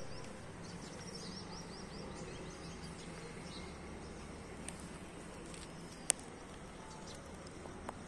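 Outdoor ambience: steady low background noise with small birds chirping, including a quick run of chirps in the first two seconds, and one sharp click about six seconds in.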